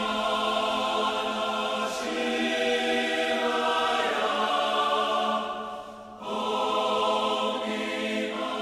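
Background music of sustained choral chords, the harmony shifting every couple of seconds, with a brief drop in level about six seconds in.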